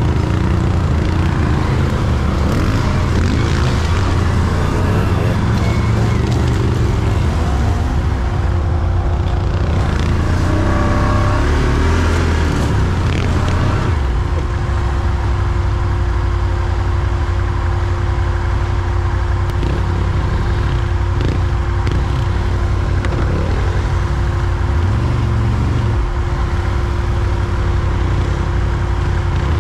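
Quad bike (ATV) engine running under way, heard from on board as a steady low drone; a steady higher tone joins in about halfway through.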